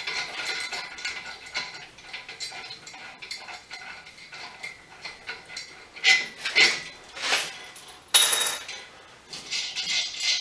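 Steel parts of a hydraulic strut spring compressor clinking and rattling as they are fitted together by hand: light scattered clicks at first, then several louder clanks about six seconds in and one ringing metal strike a little after eight seconds.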